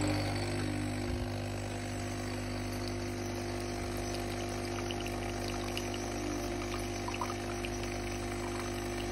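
Solis Barista espresso machine's pump humming steadily at brewing pressure while pulling a double shot, with water running into the cup.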